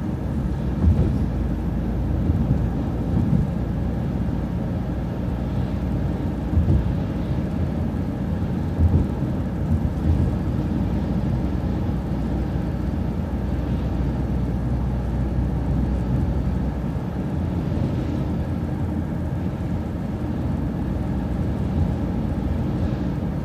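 Inside a moving city transit bus: steady low engine and road rumble, with a few short thumps from bumps in the road.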